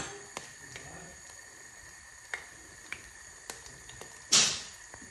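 Breaded slice of bread lying in a small frying pan of heating oil, with scattered pops and crackles as the oil begins to fry it, and one short loud hiss about four seconds in.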